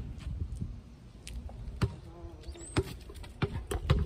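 A basketball bouncing on a concrete driveway: several uneven, sharp bounces, most of them in the second half.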